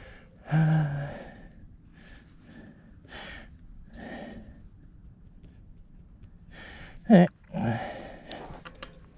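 A mountain biker's heavy breathing: a string of gasping breaths about a second apart, some of them voiced, with a loud voiced gasp or grunt about seven seconds in.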